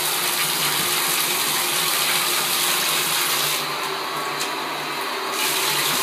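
Bathtub faucet running steadily into the tub, a constant rushing hiss that thins briefly about two-thirds of the way through.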